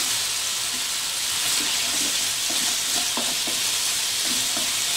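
Diced chicken breast sizzling in hot oil in a wok, with a wooden spatula stirring and scraping the pieces around the pan from about two seconds in.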